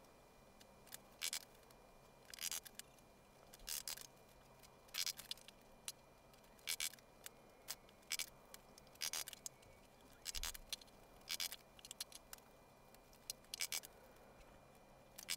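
Faint short scraping rustles, about one a second, of hands and a small tool working fabric lining as it is creased into tufted pleats.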